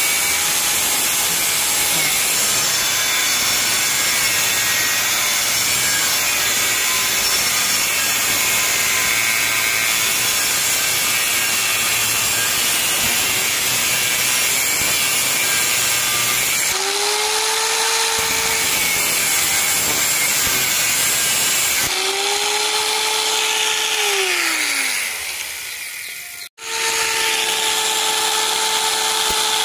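Angle grinder with an abrasive cut-off disc cutting through a rusty truck spring-steel bar, a loud steady grinding noise for about the first seventeen seconds. The grinder then whines with less load, its pitch lifting, and later winds down with a falling pitch. After a sudden break it runs free at a steady pitch.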